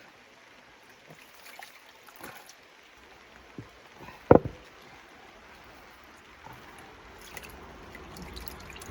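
Water trickling and sloshing in a gold pan as paydirt is washed, with small ticks of gravel and one sharp knock about four seconds in.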